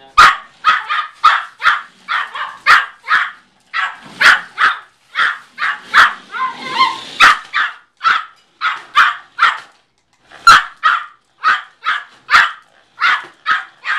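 Yorkshire terrier, a tiny 4½-pound dog, barking in rapid, sharp, high-pitched barks, about two to three a second, with a short pause about ten seconds in; it is barking at a toy remote-control car it is chasing.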